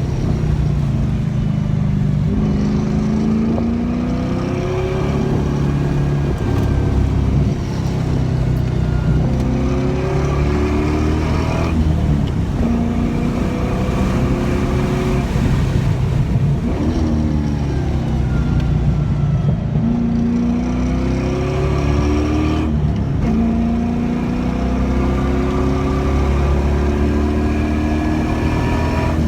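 LS1 V8 in a BMW 318ti pulling hard through the gears on a track lap. The revs climb steadily and drop sharply at each shift, several times over.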